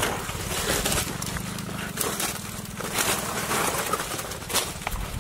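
Irregular footsteps and knocks as a barefoot person walks through mud and handles a plastic bucket around a wooden boat, over a low rumbling noise on the microphone.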